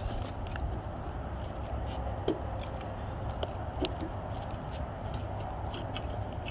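Homemade wooden trebuchet being cocked by hand: scattered small clicks and short scrapes as its arm is pulled down and the cord and sling are handled, over a steady low rumble.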